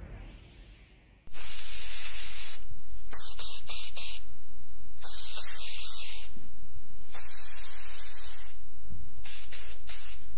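Aerosol spray paint can spraying in a continuous hiss that starts abruptly about a second in, its tone shifting between brighter and duller every second or so.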